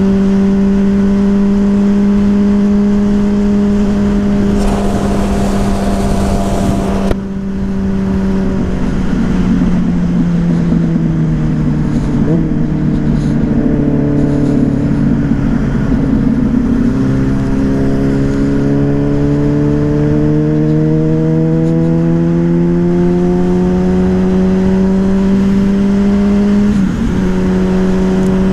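Yamaha Fazer 600's inline-four engine, fitted with a WR slip-on exhaust, running under way at steady revs. The revs sag for several seconds, then climb back, with a brief break near the end like a gear change. A rush of noise lasts a couple of seconds about five seconds in.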